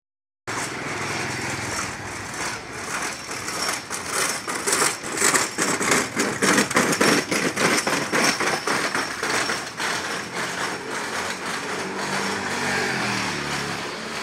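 Street traffic: motor vehicle engines passing close by, loudest around the middle with a rapid pulsing, and an engine's pitch falling near the end.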